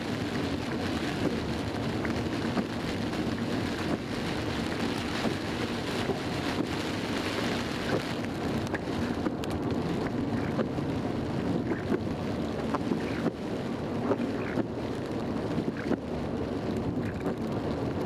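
Heavy rain drumming on a car's windscreen and body, over steady tyre and engine noise from inside the cabin of a car driving on a wet road. Scattered sharp ticks of drops hitting the glass, more of them in the second half.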